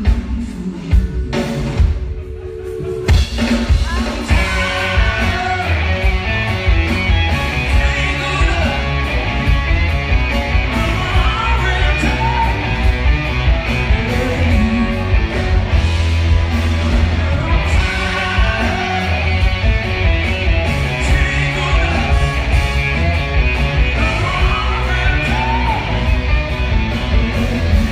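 Live rock band playing loudly: electric guitars, bass, a drum kit keeping a steady beat, and a male lead singer. After a short dip in level about two seconds in, the full band and vocals carry on.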